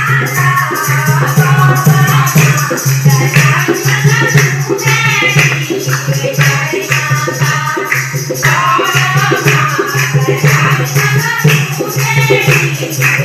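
Women singing a Garhwali devotional bhajan to the goddess Bhavani, the lead voice amplified through a microphone, with a dholak drum keeping a steady beat and jingling percussion.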